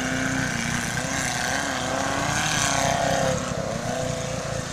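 Off-road 4x4's engine revving under load, its pitch wavering up and down.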